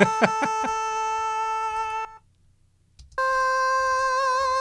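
Male sung vocal, pitch-corrected in Melodyne, playing back as held notes of unnaturally flat pitch. One long note breaks off about two seconds in, and after a short pause a second held note comes in a little higher. A short laugh sounds over the start of the first note.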